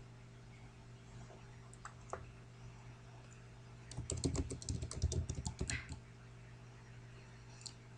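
Computer keyboard being typed on: a quick run of about a dozen key strokes lasting roughly two seconds, as a single word is typed, about halfway in. A couple of lone key or mouse clicks come before it, over a low steady hum.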